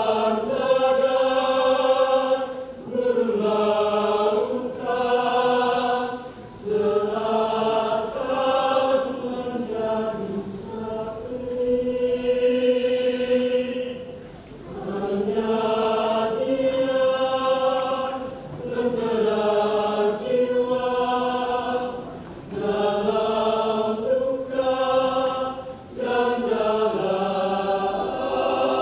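Mixed choir of men's and women's voices singing sustained chords in phrases, with short breaks for breath between them.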